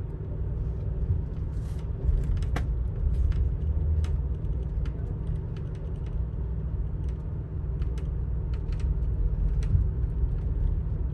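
Amtrak California Zephyr passenger train riding on the rails: a steady low rumble with frequent small clicks and rattles.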